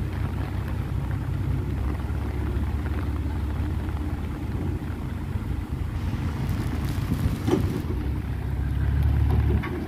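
Diesel dump truck engine running with a steady low rumble, heavier in the first few seconds and again near the end, with one short knock about seven and a half seconds in.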